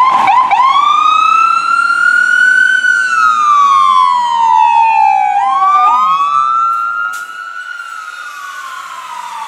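Fire engine siren wailing in slow rising and falling sweeps, a new rise starting about five and a half seconds in while the previous tone is still falling. It is loud for the first seven seconds, then drops off as the truck passes and moves away.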